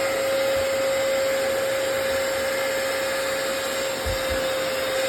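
Hoover FloorMate hard floor cleaner running in wash mode: a steady motor and suction noise with a constant whine, scrubbing the floor.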